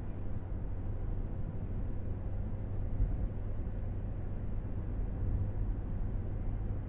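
Steady low rumble and road noise of a moving vehicle travelling along a road.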